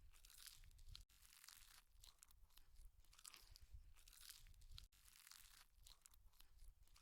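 Faint, close-miked chewing of noodles: a continuous string of short crunchy, wet mouth noises. The sound drops out briefly about a second in and again near five seconds.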